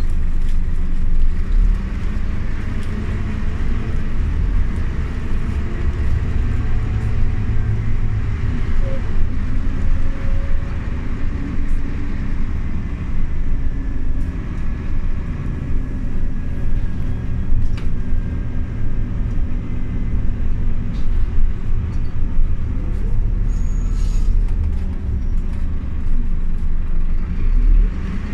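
Scania OmniLink city bus heard from inside: the diesel engine and running gear give a steady low rumble that swells several times, with light rattles and a few faint tones that slide up and down.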